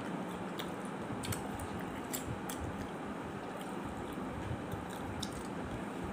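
Eating rice by hand: fingers squishing and gathering rice on a steel plate, with chewing and scattered sharp clicks over a steady background hiss.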